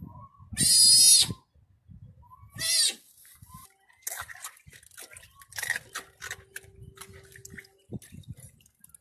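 An animal squealing twice, two loud high-pitched squeals about two seconds apart, followed by quieter rustling and clicking.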